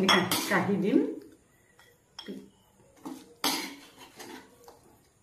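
A metal spoon scraping and clinking against a metal kadai in a few short separate strokes as thick cooked mutton is scooped out of the pan.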